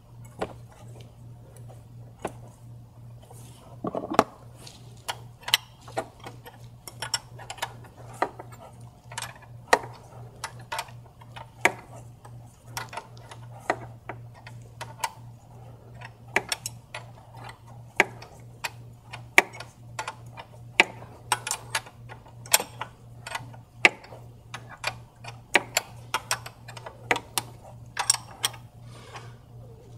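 Hand ratchet or wrench clicking in short, irregular runs of sharp metallic ticks, starting about four seconds in, as the fasteners of a freshly installed high-pressure fuel pump are tightened.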